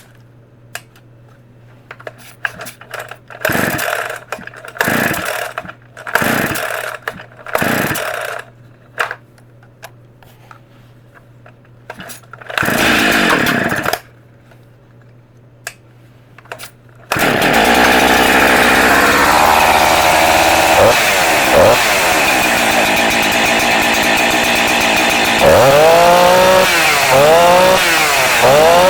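Jonsered CE2165 two-stroke chainsaw being pull-started: several short tugs on the starter cord, then the engine catches about seventeen seconds in and runs. Near the end it is revved up and down several times.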